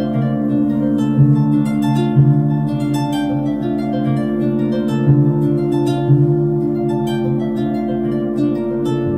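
Kora plucked in a flowing run of quick notes over the steady, held hum of crystal singing bowls.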